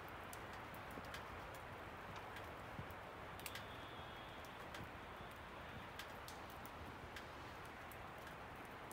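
Wet snow falling: a faint steady hiss with irregular light ticks of wet flakes and drops landing.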